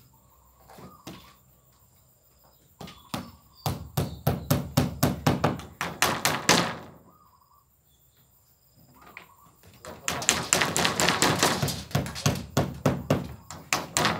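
Hammer driving nails into wood on a plywood-walled timber frame: two runs of quick blows at about four a second, the first starting about four seconds in, the second about ten seconds in.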